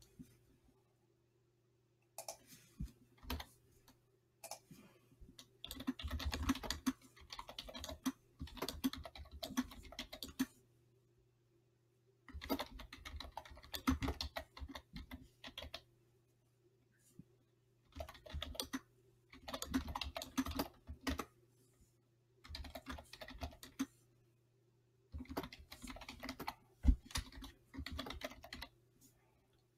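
Typing on a computer keyboard in bursts of rapid keystrokes a few seconds long, with pauses of a second or two between them.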